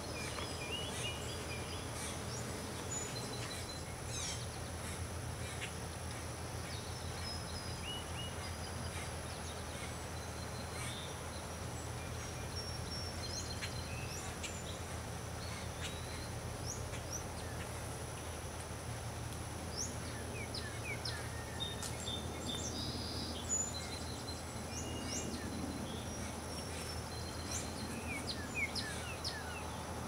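Small songbirds chirping now and then, short scattered calls and quick whistled sweeps that grow busier toward the end. Underneath is a steady low hum of outdoor background noise.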